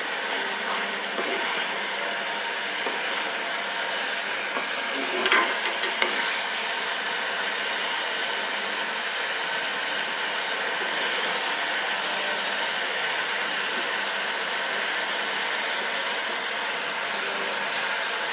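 Coconut cream boiling steadily in a pan, a continuous bubbling sizzle as it is cooked down for the oil to separate. A brief clatter about five seconds in.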